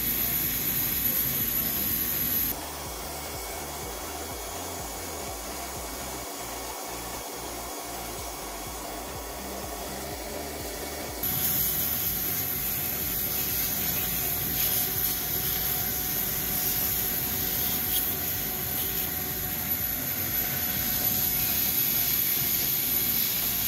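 Vacuum cleaner running as its hose sucks debris off the cylinder head around the glove-plugged intake ports. A steady noise with a high whine; it drops and dulls about two and a half seconds in, then returns to full strength about eleven seconds in.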